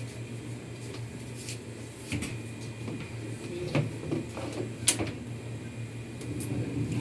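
Hitachi washing machine running after repair, its motor giving a steady low hum, with a few sharp knocks or clacks about two, four and five seconds in.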